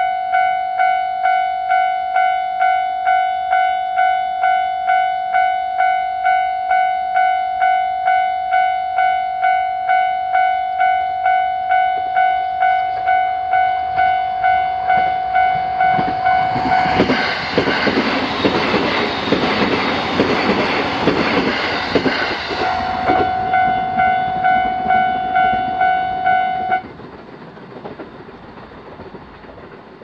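Japanese level-crossing warning bell ringing at about two strikes a second while an electric train passes through the crossing for about six seconds. The bell cuts off suddenly near the end as the crossing clears.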